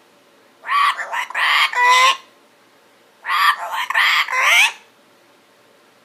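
Yellow-headed Amazon parrot talking in its sleep: two bouts of speech-like chatter, each about a second and a half long, with pitch sliding up and down.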